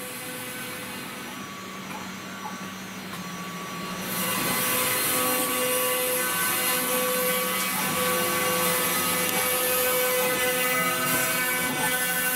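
CNC router spindle at 20,000 rpm milling 2 mm FR4 glass-fibre board with a 2 mm diamond-cut carbide cutter, with the dust extraction vacuum running: a steady whine over a loud hiss. It becomes much louder about four seconds in.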